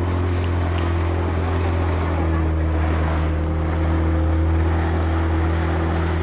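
Motor of a small open fiberglass boat running steadily at cruising speed, a constant low hum, with water and wind rushing past the hull.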